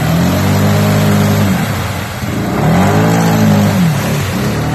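Arctic Cat MudPro 700 LTD ATV's single-cylinder engine revved hard twice while bogged in deep mud: one held surge, then a rise and fall near the end. The spinning tyres throw up a spray of mud underneath.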